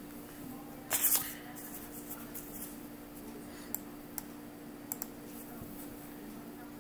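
Quiet room tone with a low steady hum, a short rustle about a second in, and a few faint clicks later on.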